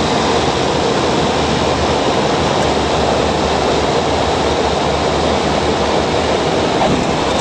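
Steady drone of a Cessna Caravan's turboprop engine and propeller heard from inside the cabin, loud and unchanging.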